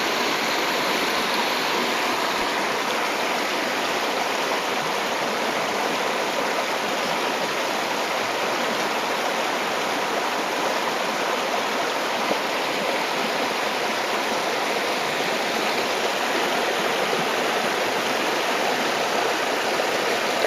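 Creek water flowing over rocks: a steady, even rush of running water.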